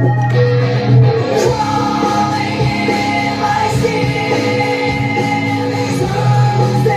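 Background music: a song with held instrumental notes and some singing.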